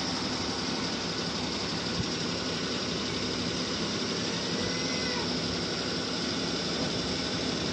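Suzuki Mehran's small three-cylinder petrol engine running steadily at low revs.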